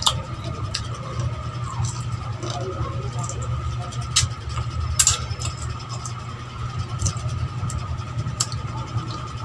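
Wet mouth clicks and lip smacks from sucking meat off a chicken bone, a few sharp ones scattered through, over a steady low machine hum with a faint steady higher tone.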